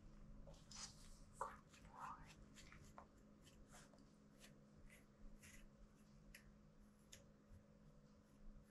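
Faint, short scratchy strokes of a metal grooming comb pulled through a Shih Tzu's long coat, repeated irregularly about once or twice a second.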